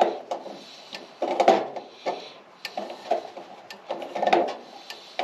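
Hand rivet-nut tool being worked by hand to free it from a set threaded nut insert in sheet metal: irregular metal clicks, clinks and rattles with short ringing.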